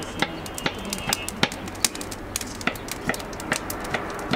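Kitchen knife chopping onion on a wooden cutting board: quick, uneven knocks, about three a second.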